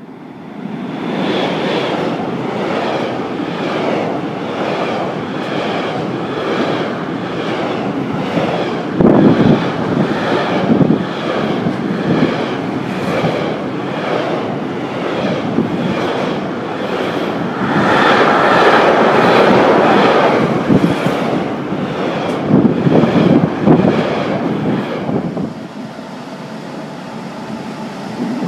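Container freight train hauled by an electric locomotive passing close at speed: a loud, steady rumble of the wagons with a rhythmic clatter of wheels, about two clacks a second, swelling louder several times. Near the end the rumble drops to a quieter level.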